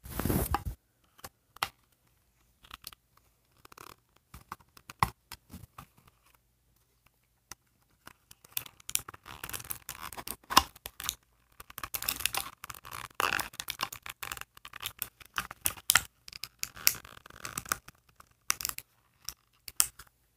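Hands working a small doll loose from its plastic packaging: scattered clicks and scrapes at first, then a busier stretch of rustling, scraping and tearing through most of the second half.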